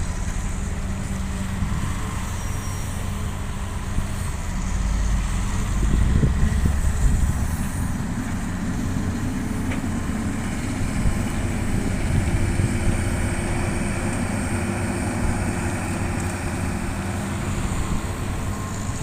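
Heavy diesel engine of construction machinery running steadily: a low rumble that swells briefly about six seconds in.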